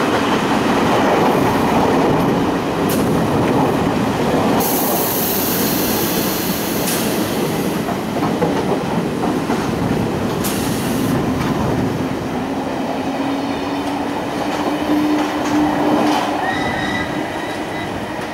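London Underground Metropolitan line trains passing on curved track: a steady rumble of wheels on rail with clatter, and short high squeals from the wheels. A slowly rising whine comes in from about twelve seconds in.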